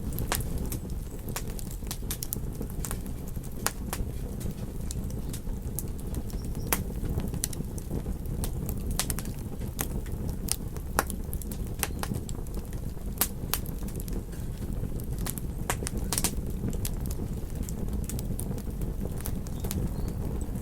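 Wood fire crackling: irregular sharp snaps and pops over a steady low rumble of burning flames.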